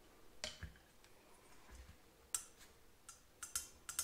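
Faint, sharp metallic clicks and taps from handling a motorcycle cylinder head as its rocker shaft is turned and seated in the aluminium head. The clicks come singly at first and grow quicker near the end.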